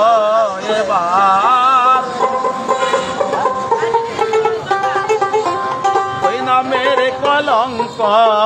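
Dotara, a long-necked Bengali folk lute, plucked in a quick folk melody. A man's voice holds wavering sung notes over it in the first two seconds and again near the end.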